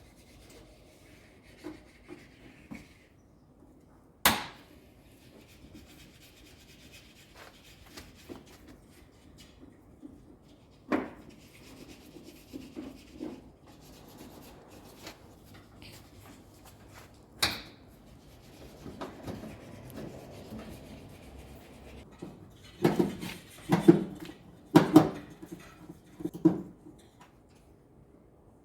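Hands-on repair noises from a Daewoo front-load washing machine's cabinet as it is tilted back and worked on: rubbing and scraping, three single sharp knocks several seconds apart, then a run of heavier thumps and clunks near the end.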